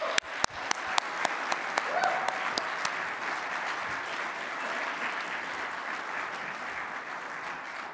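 An audience applauding, with sharp, close claps from one person near the microphone in the first few seconds. The applause slowly dies away toward the end.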